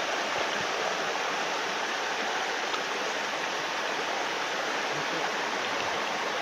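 Shallow stream running over stones and gravel: a steady rush of water.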